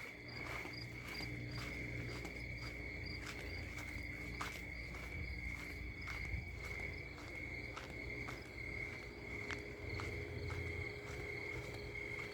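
Crickets chirping in a steady, high, pulsing trill, with scattered soft clicks and a low rumble underneath.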